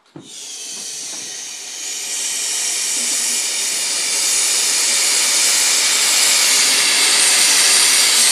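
Compressed carbon dioxide hissing out of a gas cylinder through its valve into a dry-ice maker, the expanding gas freezing into CO2 snow. The high hiss starts suddenly, grows louder over the first few seconds, then holds steady.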